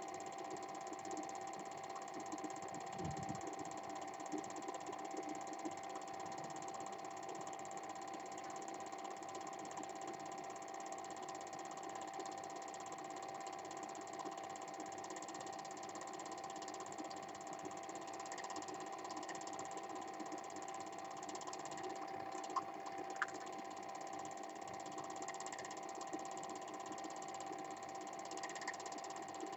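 Cine film projector running steadily: a continuous mechanical whir with a constant hum. Two short clicks come about three quarters of the way through.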